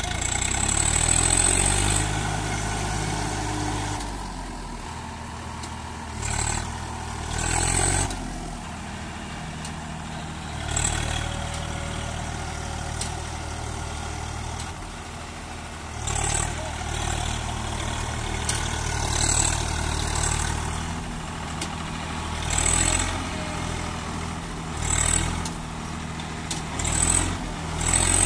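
Swaraj 744 FE tractor's diesel engine labouring under load and revving up again and again, about ten times, as the tractor tries to drive out of deep mud it is stuck in.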